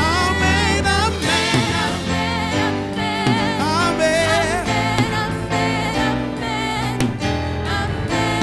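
Gospel worship music: sustained band chords with a voice singing wavering, gliding runs without clear words.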